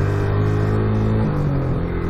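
Motorcycle engine running under way, its pitch dropping in two steps in the second half as the revs fall.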